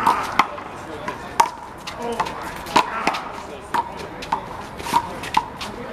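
Big blue rubber handball in a fast one-wall handball rally: a quick, uneven string of sharp smacks as the ball is struck by hand and bounces off the wall and ground, about two a second, each with a short ringing ping.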